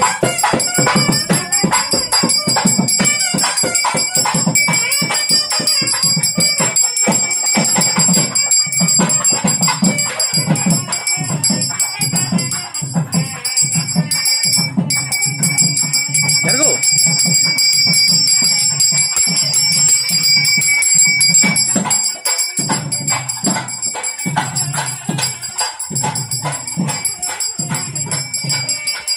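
Rhythmic drumming with bells ringing and jingling over it.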